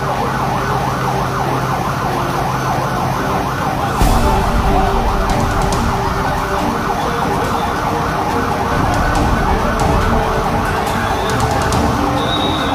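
Emergency vehicle siren sounding a fast, repeating warble. A low rumble comes in about four seconds in.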